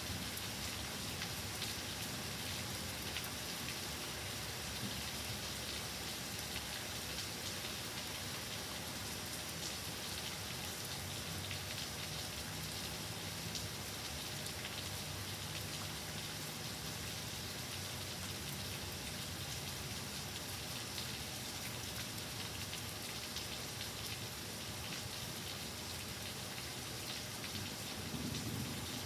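Steady heavy rain in a thunderstorm: an even hiss of falling water with a fine scatter of individual drop strikes, holding at the same level throughout.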